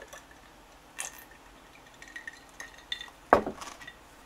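Glass mug clinking lightly, then set down on a table with one sharp knock a little over three seconds in.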